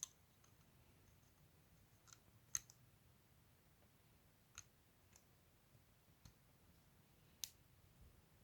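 Faint, scattered clicks of plastic LEGO pieces being handled and pressed together, about half a dozen over several seconds with quiet between them.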